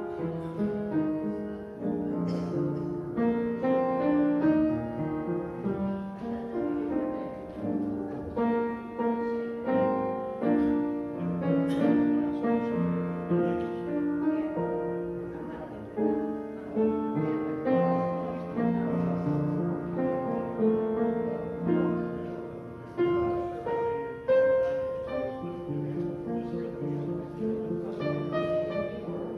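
Piano playing an instrumental piece, chords with a melody line on top.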